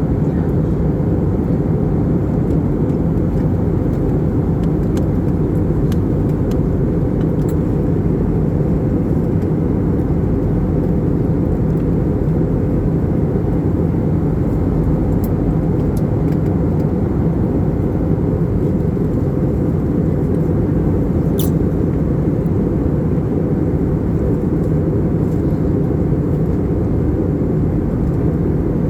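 Steady low cabin noise of an Airbus A320 in flight: engine and airflow rumble, unchanging, with a faint click about twenty-one seconds in.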